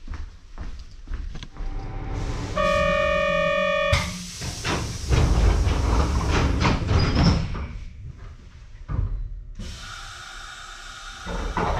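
Commuter train's door buzzer sounds a steady electronic tone for about a second, then the pneumatic doors hiss with air and slide shut with clunks and rattles. A second burst of air hiss starts near the end.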